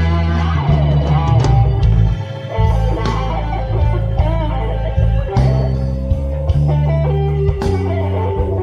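Live blues band playing an instrumental passage: an electric guitar solo on a Stratocaster-style guitar, with notes bent up and down, over bass and drums.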